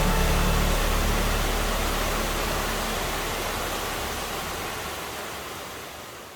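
Steady rush of a waterfall, a full even hiss that fades out gradually toward the end. The last notes of background music die away under it in the first few seconds.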